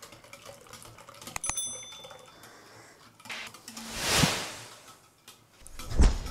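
Wire whisk stirring a thin milk-and-egg batter in a bowl, with light clicks of the wires. A short bell-like chime rings about a second and a half in, a loud whoosh swells and fades around four seconds in, and a sharp thump comes near the end.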